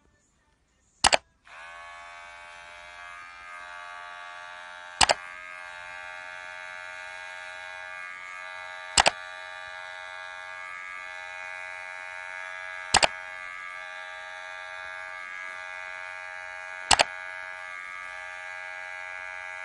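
A steady electric buzz, like a small motor or shaver, starting about a second and a half in. A loud, sharp click sounds about every four seconds.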